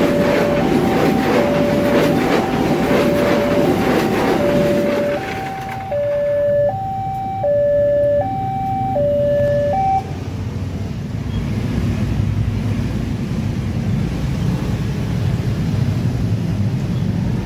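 A railway level-crossing warning alarm alternates between a lower and a higher note, about 0.7 s each, over the clatter of passing passenger train carriages. The clatter fades out about five seconds in. The alarm cuts off abruptly about ten seconds in as the barrier goes up, leaving the low rumble of motorcycles and cars moving over the crossing.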